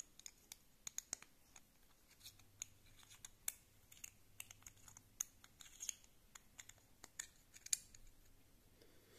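Faint, irregular small metal clicks and scrapes as a quartz wristwatch's screw-down caseback is unscrewed with an adjustable two-pin caseback wrench.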